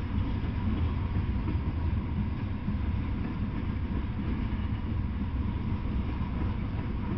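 Freight train of open-top hopper cars rolling past, a steady low rumble of wheels on rail.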